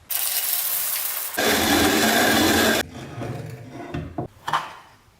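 Restored antique hand-cranked coffee grinder grinding, a continuous rasping crunch that gets louder about a second in and stops near the middle, followed by a few quieter scrapes and short knocks.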